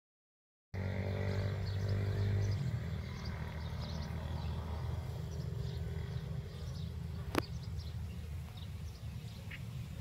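Outdoor ambience: a low hum, with short, high chirps of small birds repeating irregularly over it. A steady droning tone sounds for the first couple of seconds, and a single sharp click comes about seven seconds in.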